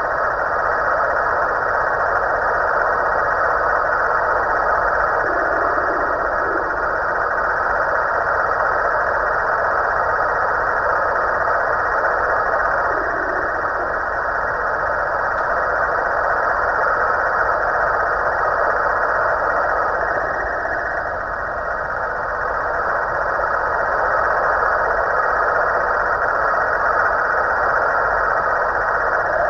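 Snoring from a Halloween pumpkin: a loud, steady drone that dips briefly about two-thirds of the way through.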